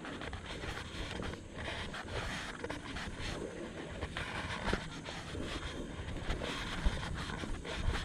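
Low rumbling wind and handling noise on a body-worn action camera, with faint rustling and a few soft knocks as the wearer moves along a fallen log.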